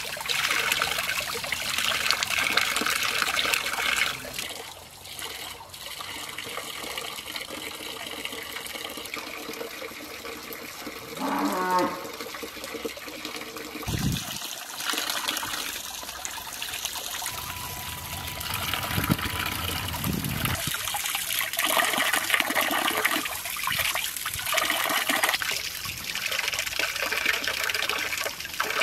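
Water pouring from an outdoor spout and splashing over hands as small fish are rinsed and cleaned, louder near the start and again toward the end. A cow moos once, briefly, about halfway through.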